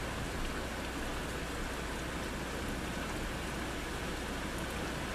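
Steady rain falling during a thunderstorm: an even, unbroken hiss of drops.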